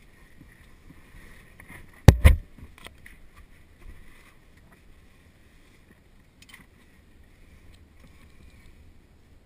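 A caver moving through a tight rock passage: a sharp double knock against the rock about two seconds in, then faint scrapes and small clicks of gloves, clothing and gear on stone.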